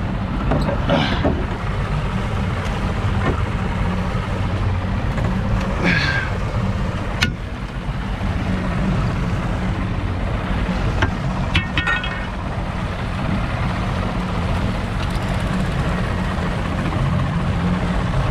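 Boat outboard motor running steadily, a low hum under wind and rushing water, with a few brief clicks.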